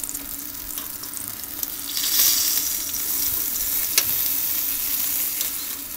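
Chicken thighs sizzling on a Cobb charcoal grill, with fat spitting on the hot coals below. The sizzle swells about two seconds in, and metal tongs click once against the wire rack near four seconds.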